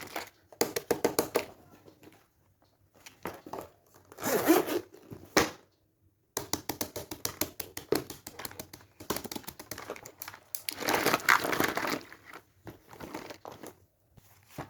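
Crinkling and rustling of something crinkly being handled, in irregular clusters of crackles with short pauses between them.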